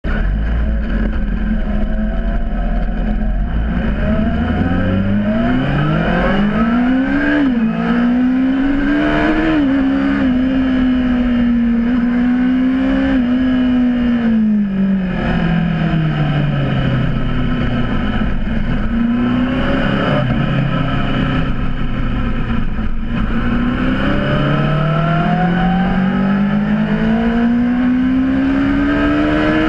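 Honda CBR600RR inline-four engine accelerating and easing off: its pitch climbs with short dips at the upshifts, drops back about halfway through, holds low for several seconds, then climbs steadily again near the end.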